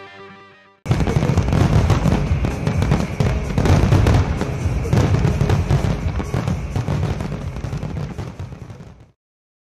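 Fireworks going off: a dense run of crackling bursts and deep booms that starts about a second in and cuts off suddenly near the end.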